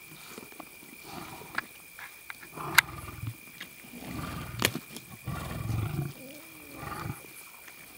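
Two male lions feeding on an impala carcass: low growling rumbles between bites, with chewing and tearing of meat. Two sharp cracks, one about three seconds in and a louder one just before the middle, are typical of bone breaking between the teeth.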